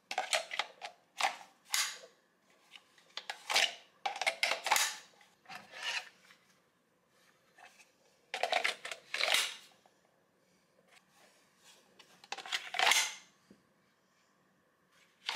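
Safariland polymer holsters being handled and a light-mounted Glock pushed into and drawn from them, in about six bursts of hard plastic scraping and clicks.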